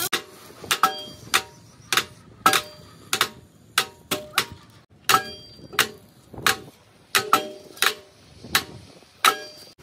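Hammer blows on metal in a steady rhythm, roughly one and a half strikes a second with some quick doubles, each blow ringing briefly.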